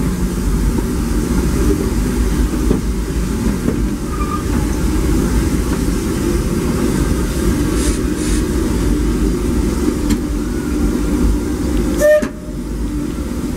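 Disneyland Railroad steam train running on the rails: a loud, steady rumble. A short sharp sound comes about twelve seconds in, and the rumble dips briefly after it.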